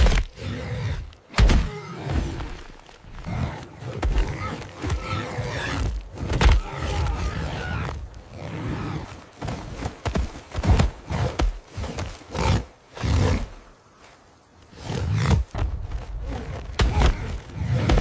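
Sound effects of a giant boar fight: the animal's grunts and roars mixed with repeated heavy thuds and scuffling impacts. There is a brief lull about two-thirds of the way in.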